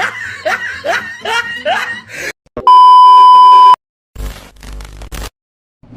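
Separate sound-effect clips played back to back: the tail of a clip of short falling-pitch sounds, then a loud, steady, high-pitched censor bleep about a second long, then a short burst of noise with a low rumble.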